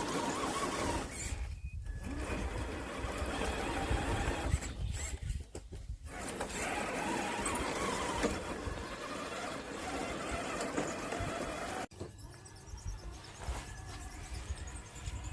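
A radio-controlled scale crawler's electric motor and geared drivetrain whine as it drives in stop-start bursts, dropping out briefly twice. After a sudden break near the end, the whine is quieter.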